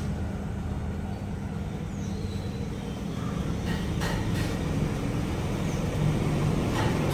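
Steady low mechanical hum, like a running engine or machine, with a few faint knocks.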